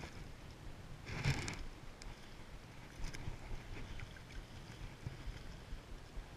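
Wind buffeting the camera microphone over flowing river water, with a brief louder rush of noise about a second in.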